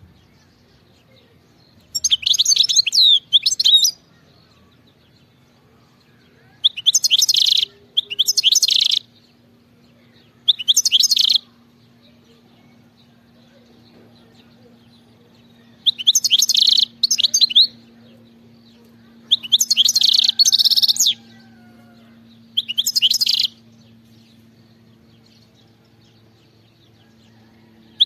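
European goldfinch singing in short bursts of rapid, high twittering phrases, about six in all, each one to two seconds long with pauses between. A faint steady low hum lies underneath.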